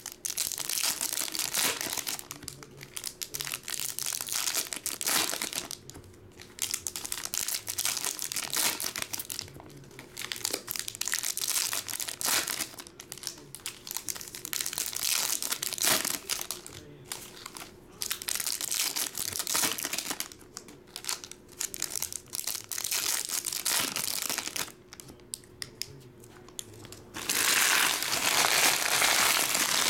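Foil trading-card pack wrappers being torn open and crinkled by hand, in repeated bursts with short pauses between them. The crinkling turns louder and continuous for the last few seconds.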